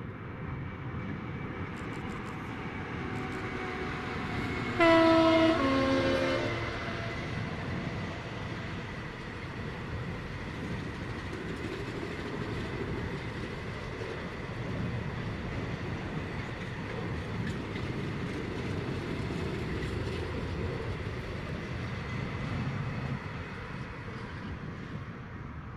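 Class 66 diesel locomotive sounding its two-tone horn about five seconds in, a higher note then a lower one, as it hauls a long container freight train past. The steady rumble and clatter of the wagons follows and fades near the end.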